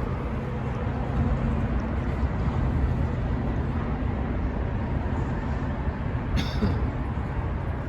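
Steady rumble of highway traffic crossing the Interstate 77 bridge overhead, heard from the river beneath it.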